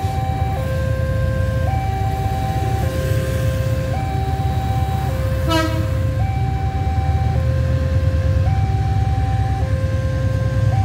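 Two-tone electronic railway warning signal, alternating between a low and a higher note about once a second, over the low rumble of an approaching Babaranjang coal train's diesel locomotive, which grows louder in the second half. A brief falling chirp comes about halfway through.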